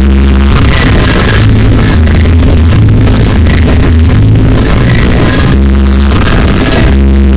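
Loud dance music played through a mobile DJ sound system, with a heavy bass line.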